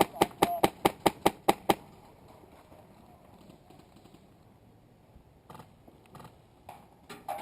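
Airsoft rifle firing a rapid string of single shots, about five a second, stopping a couple of seconds in. A few fainter, scattered shots follow near the end.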